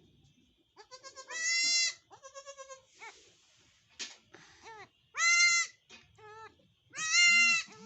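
Nagra goat kids bleating: three loud, high bleats, each about half a second long, with shorter, softer calls in between.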